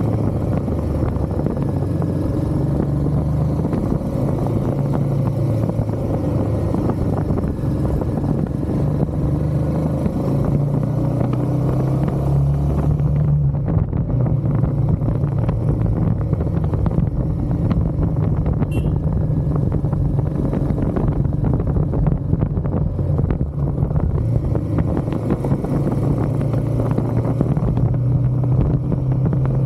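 Royal Enfield Himalayan 450's single-cylinder engine running under way, its note rising and falling as the throttle changes.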